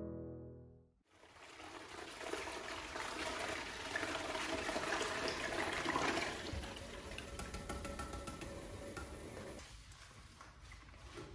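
Toilet brush scrubbing inside a toilet bowl, with water swishing and splashing. It eases off near the end into softer rubbing.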